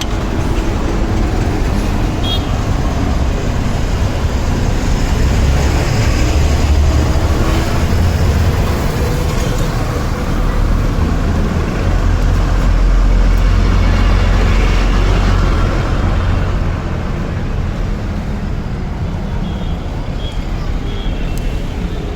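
Motor vehicle engine noise: a steady, loud low rumble that swells for a few seconds past the middle.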